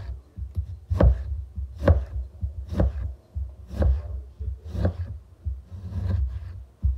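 Kitchen knife slicing through a halved orange and tapping the cutting board at the end of each cut, one even slice about every second.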